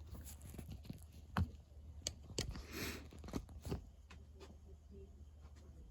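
1984 Casablanca Delta ceiling fan running on low speed on freshly replaced bearings: a faint steady low hum, with a scattering of sharp clicks and taps over it.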